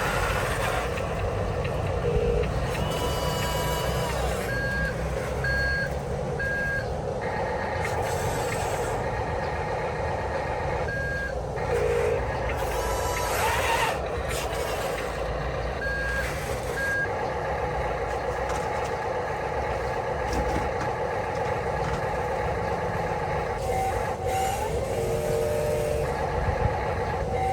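Radio-controlled construction machines running with a steady mechanical noise, overlaid with short, high reversing beeps, a run of three about five seconds in and a few more later.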